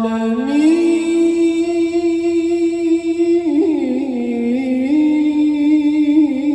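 A man chanting the sela, the Islamic call of blessing on the Prophet, through a stage microphone and loudspeakers, in long held notes. His voice rises about half a second in and holds a high note, then falls through a quick run of ornaments a little past the middle and settles on a lower held note.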